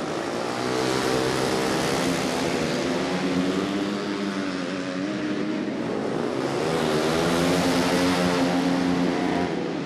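Two 450cc four-stroke single-cylinder flat-track motorcycles racing on a dirt short track, engines revving up and down through the turns. The sound swells louder twice as the bikes come by.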